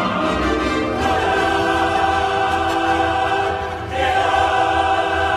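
Background music: a choir singing long held chords, which change about a second in and again near four seconds.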